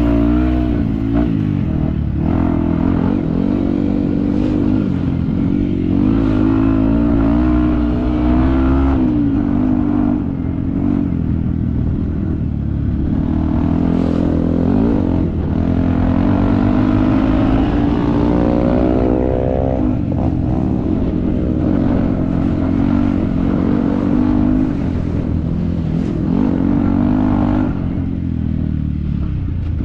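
Yamaha WR155's single-cylinder four-stroke engine being ridden hard off-road, its revs rising and falling continually with the throttle, with occasional knocks and clatter from the bike.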